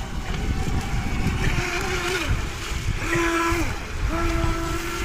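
Electric motors of small radio-controlled speedboats whining at speed; the pitch drops twice as the throttle is eased, then climbs back and holds steady. Wind rumble on the microphone underneath.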